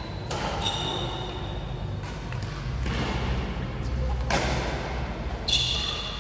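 Badminton rackets striking a shuttlecock in a rally, several sharp hits that echo in a large hall, the loudest about four seconds in.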